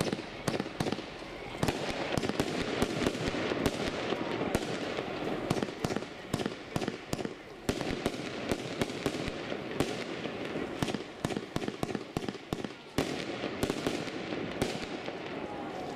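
Consumer firework battery (Max. Power Explosion) firing: a dense, continuous stream of sharp bangs and crackles as its shots burst overhead.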